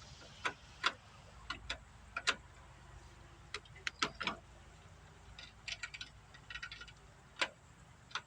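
Irregular sharp clicks and light metallic rattles, some in quick pairs and short clusters, from tools and parts being handled while the lawn tractor's starter wiring is worked on.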